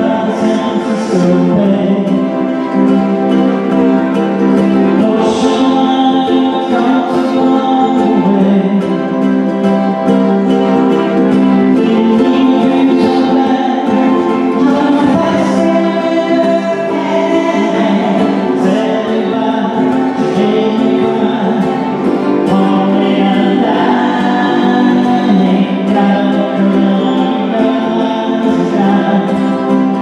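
Live acoustic band playing a song: strummed guitars with sustained melody notes, and voices singing together.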